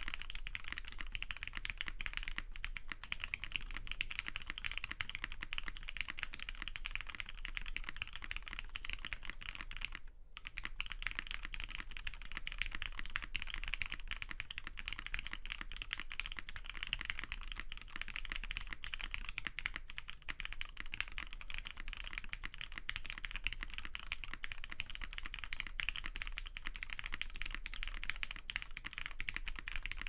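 Steady typing on a custom mechanical keyboard, a Matrix 8xv2.0 Add in a full aluminium case with an aluminium plate and lightly lubed Cherry MX retooled black linear switches. Keystrokes follow close together, with a brief pause about ten seconds in.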